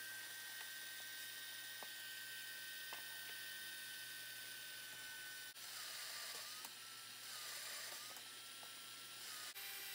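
Drill press motor running with a steady whine and a few faint clicks. After a cut about halfway through, the whine sits a little lower and sags and wavers as the bit bores into the wood clamped in the vise.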